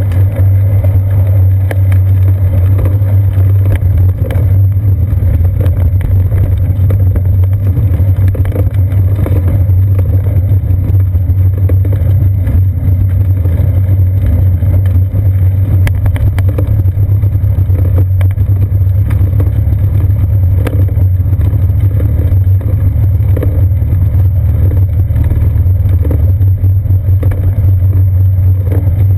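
Steady, loud low rumble of wind and road vibration picked up by a seat-post-mounted GoPro Hero 2 on a moving bicycle.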